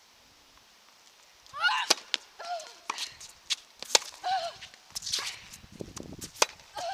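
Tennis rally on a hard court: a tennis ball struck by rackets and bouncing, a string of sharp pops starting about a second and a half in, with short high squeaks among them.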